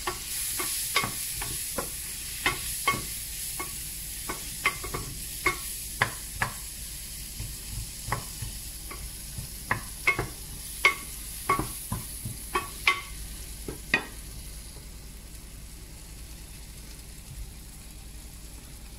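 Chopped tomatoes and onions sizzling in hot olive oil in a stainless steel pan, while a wooden spoon stirs them, knocking against the pan many times over the first fourteen seconds or so; after that only the steady sizzle goes on.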